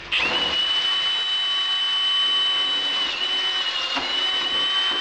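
Cordless drill running steadily with a 22 mm hole saw cutting through a fridge door, a high steady whine that starts right away and stops abruptly as the hole saw cuts through.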